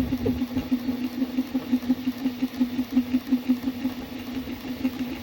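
Stepper motors of a home-built Rolohaun Rook 3D printer hum at one steady pitch, pulsing about six times a second as the print head lays down the first layer. The hot-end and part-cooling fans hiss underneath.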